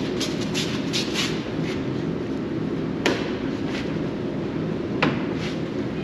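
Plastic cargo bed of a Can-Am Defender being carried and set down on a concrete floor: light clicks and rattles, then two sharp knocks about three and five seconds in, the second the loudest, over a steady low hum.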